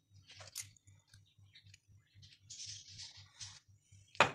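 Faint clicks, then a soft rustling hiss for about a second as dried dill is added to a glass bowl of flour and spices, and a single sharp clink near the end.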